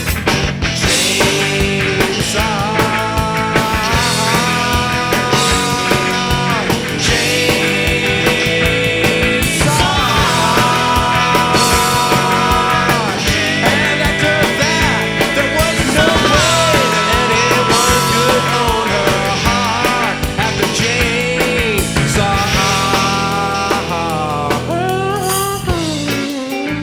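Rock band playing an instrumental break: long held notes that bend and waver ride over bass and drums.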